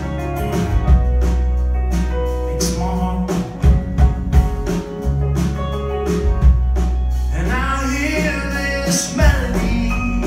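Live band playing a song, with upright bass, drums, electric guitars and fiddle: a steady bass line and regular drum hits, with a melody that slides and wavers in pitch about eight seconds in.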